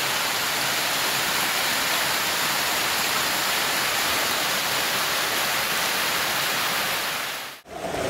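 Steady, even rush of a waterfall close by, which cuts off suddenly near the end.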